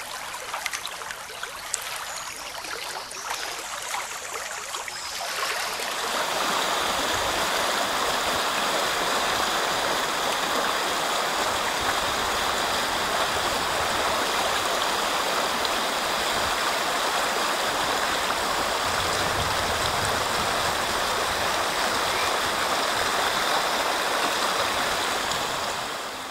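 Mountain stream water of the young Isar near its source, rushing and gurgling over stones. It is fainter at first, then louder and steady from about six seconds in.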